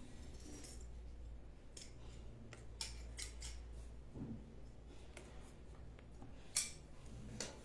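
Knitting needles working yarn: faint, scattered clicks and ticks, one sharper click near the end, over a low steady hum.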